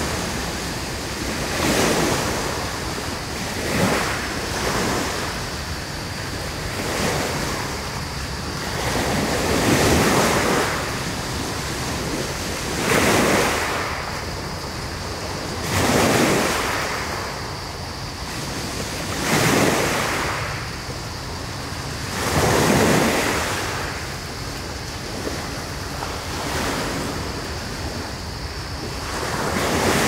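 Waves breaking and washing on a pebble beach, with a surge of surf about every three seconds over a steady hiss.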